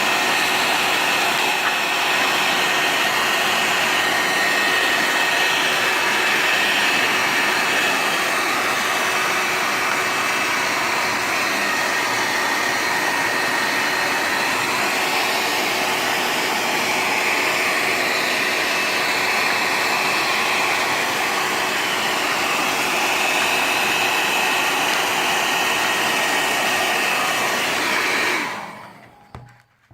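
Handheld hair dryer running steadily on hot air, used to heat the phone and soften its adhesive so the back can be opened. It has a rushing whoosh with a faint steady whine, and it is switched off near the end.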